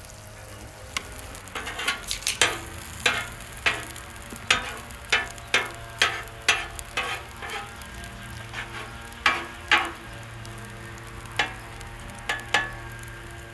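Butter and egg mixture sizzling steadily on a hot flat-top griddle, with repeated sharp taps and scrapes of cooking utensils against the griddle plate and bowl, most of them in the middle of the stretch.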